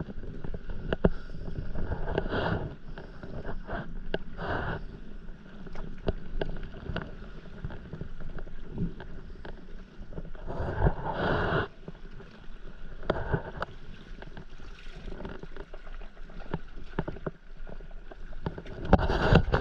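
Stand-up paddleboard paddle strokes: the blade dipping and pulling through the water in irregular splashy swells every couple of seconds, with small clicks and knocks in between.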